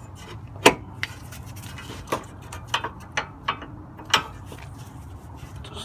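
Irregular sharp metallic clicks and clinks, about seven over a few seconds, as metal suspension parts and tools knock together while a roll center adjuster spacer is seated on the ball joint.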